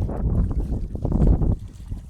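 Wind buffeting the microphone: a heavy, gusting low rumble that eases off near the end.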